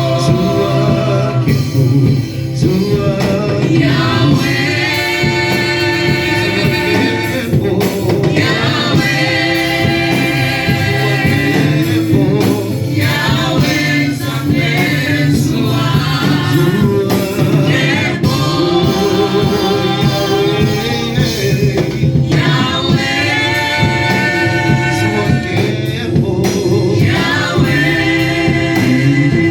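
Gospel worship song: voices sing long phrases of a few seconds each, with short breaks between them, over a steady instrumental backing.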